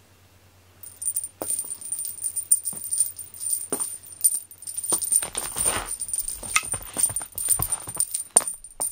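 A small jingle bell tinkling and clinking in irregular shakes as a cat paws, bites and rolls against its toys, with soft rustling and a fuller scuffle about five to six seconds in.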